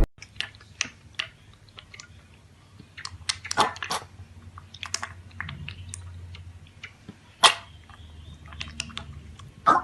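Chewing: irregular small clicks and crunches, with a sharper click about seven and a half seconds in and another near the end.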